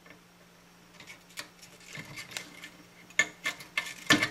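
Metal hand tool clicking and scraping against the solder lugs and wiring of a vintage tube receiver's steel chassis as a stubborn component lead is worked free. Scattered sharp clicks start about a second in and come thicker and louder near the end.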